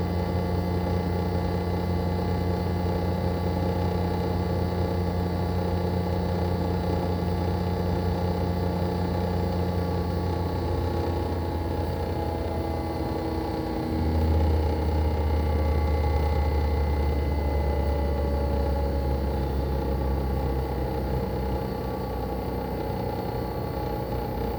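Daikin ARN22HS inverter air-conditioner outdoor unit, with its swing rotary compressor and propeller fan, running steadily in heating mode with its coil frosted over. A steady hum with several steady tones; from about ten seconds in some tones slide down as the compressor changes speed, and about fourteen seconds in the low hum steps up louder.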